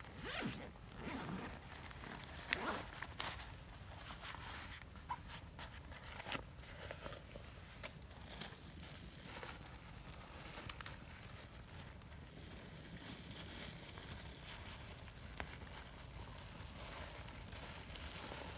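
Rummaging through a canvas bag on the ground: faint rustling and handling noises, with a few sharp clicks in the first several seconds, then quieter rustling.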